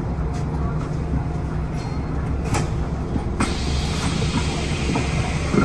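Bus engine idling with a steady low hum. There is a click about two and a half seconds in, and a steady hiss sets in just after halfway.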